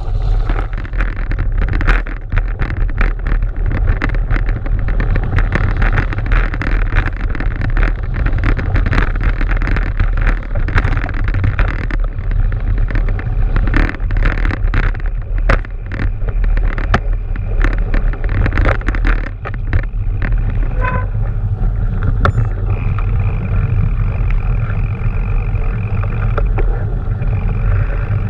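Mountain bike ride heard from a camera mounted on the rider: wind buffeting the microphone over a constant low rumble of tyres on a snowy track, with many sharp knocks and rattles from the bike over bumps.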